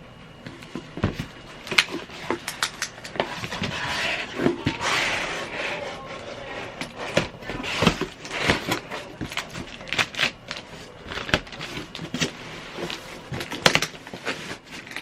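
Cardboard and plastic packaging being handled: an irregular series of sharp clicks and knocks, with a longer rustle about four to five and a half seconds in.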